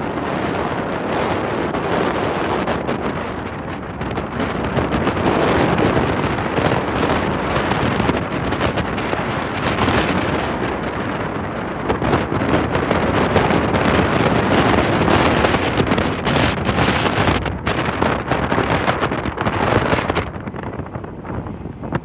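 Strong wind rushing over the microphone, a loud steady buffeting noise that eases near the end.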